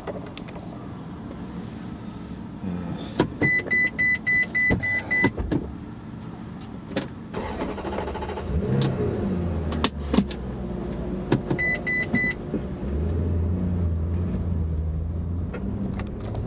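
Maserati Quattroporte Sport GT's V8 running at low speed, heard inside the cabin, its low hum growing steadier and louder about two-thirds of the way through. Two runs of evenly spaced electronic beeps from the car, about eight at roughly four a second and later four more, with a few scattered clicks.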